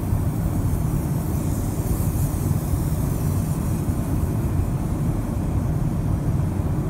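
Steady low rumble of an airliner cabin in flight: engine and airflow noise.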